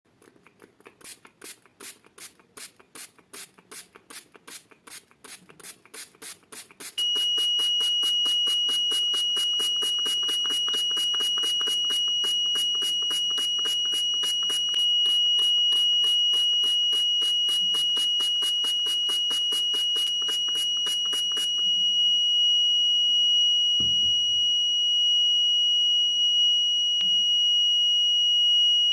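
A rain-alarm piezo buzzer sounding a steady high-pitched tone without break, the alarm set off as its sensor gets wet. Before the tone starts, about seven seconds in, there is a rapid even clicking of about five a second, which goes on under the tone and stops near the end. A dull thump follows.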